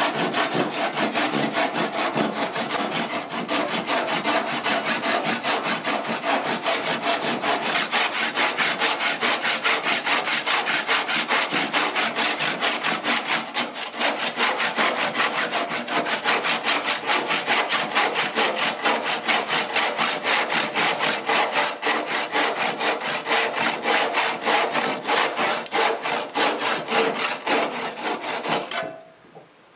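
Handsaw cutting through a wooden board at a 45-degree angle, in steady, even back-and-forth strokes. The sawing stops about a second before the end as the cut is finished.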